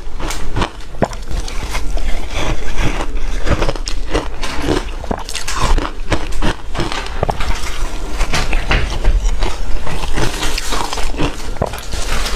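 A person biting and chewing soft, refrozen shaved ice, a dense run of loud crunches with no pause.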